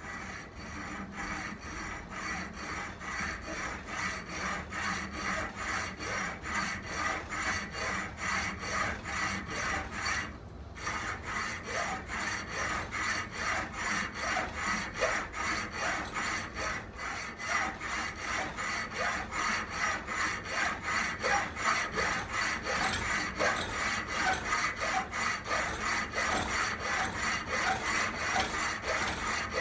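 Hand hacksaw cutting through 1-inch aluminum bar stock in steady, even back-and-forth strokes, with a brief pause about ten seconds in.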